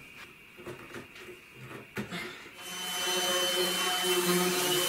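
Random orbital sander with a dust-extraction hose running steadily on a jarrah frame, starting about two and a half seconds in with a constant hum and high whine. Before it come a few faint knocks and a sharper knock about two seconds in.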